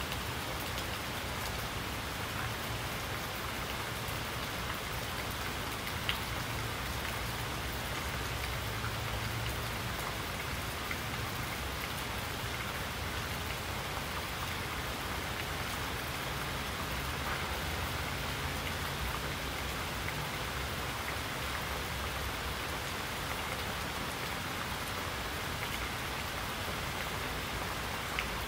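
Steady rain falling: an even hiss over a low rumble, with a few louder single drops ticking through it.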